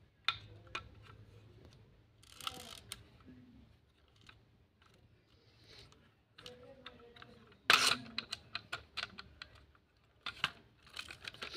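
Plastic clicks and small knocks from a Centy Toys toy fire ladder truck being handled, its plastic outrigger jacks snapping into place. About eight seconds in comes a louder clack as the truck knocks against a tiled floor, then a run of quick clicks.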